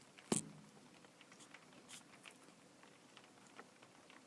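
Faint, scattered ticks of heavy rain heard from inside a room with the window still shut, with one sharp knock just after the start.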